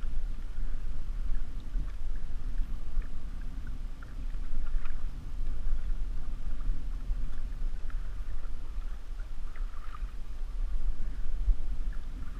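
Choppy lake water splashing irregularly against the hull of a moving canoe, right beside the microphone, over a constant low rumble.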